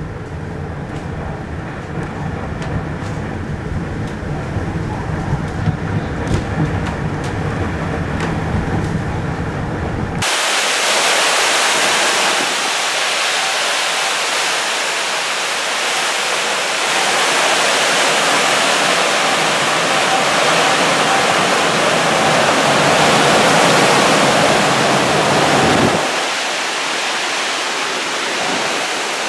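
Hurricane-force wind and rushing storm-surge floodwater. For the first ten seconds or so it is a low, steady rumble; then it changes abruptly to a loud, steady hiss of wind, rain and fast-moving water, which eases a little near the end.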